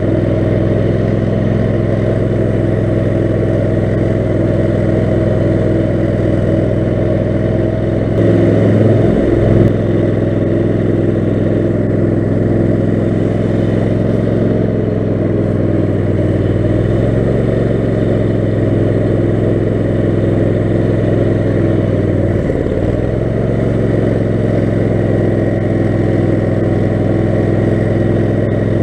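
Kohler 18 HP Command engine on a lawn-tractor-based offroad mower running steadily under way, with a brief change in revs and a slight rise in loudness about eight seconds in, and another brief dip in revs later on.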